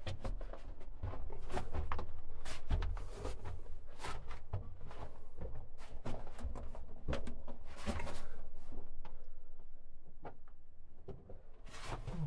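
Irregular footsteps crunching and scuffing on loose rock and gravel inside a mine tunnel, with many small clicks and knocks.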